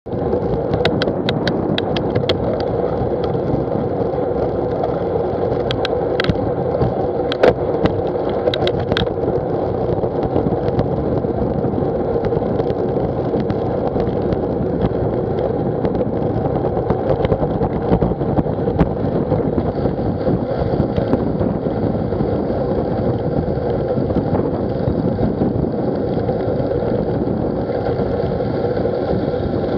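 Wind and road noise of a bicycle riding on wet tarmac, picked up by a bike-mounted action camera: a steady rushing rumble, with a few sharp ticks in the first ten seconds.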